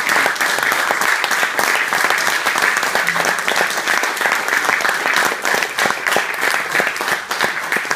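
Audience applauding steadily: many hands clapping at once, starting just as the choir's song ends.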